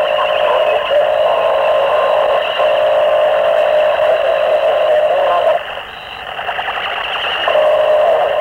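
Harsh noise music from a 1992 cassette demo: a dense, tinny wall of distorted noise with no bass, made with microphones and homemade electronics. About five and a half seconds in it drops to a quieter, flickering noise for about two seconds before the full wall comes back.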